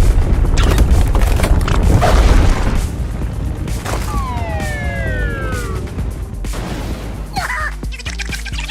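Cartoon soundtrack: music over a heavy rumble, with booms and crashing impacts for an earthquake gag. About four seconds in, a whistle glides steadily downward for about two seconds.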